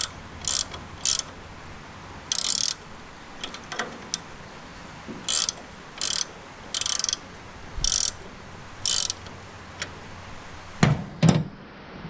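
A hand ratchet being worked in about nine short clicking strokes, a second or so apart, taking up tension on a new drive belt. Two heavy thumps follow near the end.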